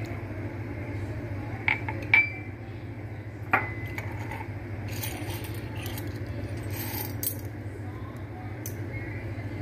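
Light metallic clinks of metal measuring spoons against a ceramic bowl while sauces are measured out: two about two seconds in and a third a second and a half later, each with a short ring. A steady low hum runs underneath, with faint handling rustles later on.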